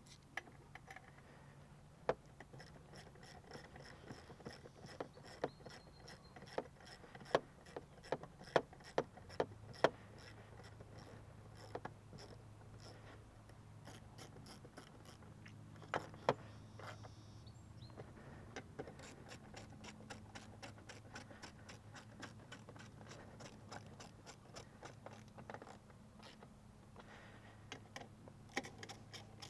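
Socket ratchet clicking in runs as bolts are driven in, with several sharper clacks of tools or parts, most between about 2 and 10 seconds in.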